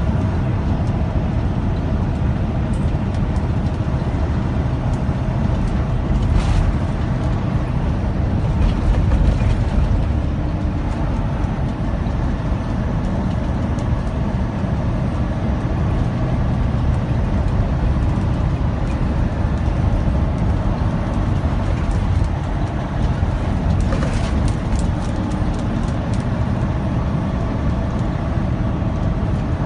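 Cab noise of a semi truck at highway speed: the diesel engine's steady drone with tyre noise on wet pavement. A few brief clicks or rattles come about six seconds in and again around twenty-four seconds.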